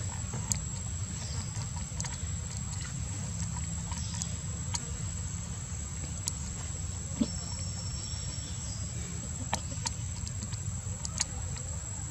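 Outdoor background: a steady low rumble under a thin, steady high-pitched insect whine, with a few scattered sharp clicks.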